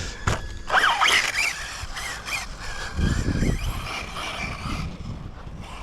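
Brushless electric motor of an RC buggy whining, rising and falling in pitch as the throttle is worked, with a brief low rumble about three seconds in.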